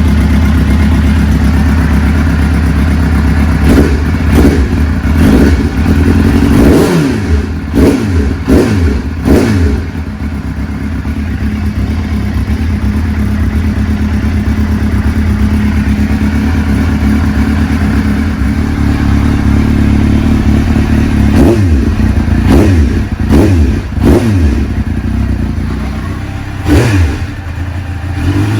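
Suzuki GSX-R600 SRAD inline-four idling, with its throttle blipped in two runs of quick revs and a steady idle in between. The bike is being run to check the silencer joint after a new exhaust gasket, which holds with no leak.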